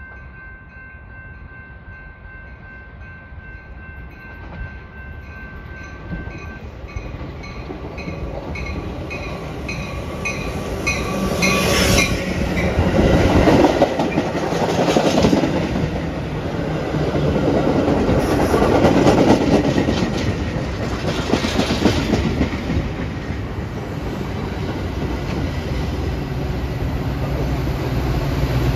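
Commuter train of stainless bi-level gallery cars, pushed by a locomotive at the rear, coming closer and passing close by, its wheels rumbling and clattering over the rails more and more loudly. A bell dings rapidly and steadily through the first dozen seconds, typical of grade-crossing warning bells.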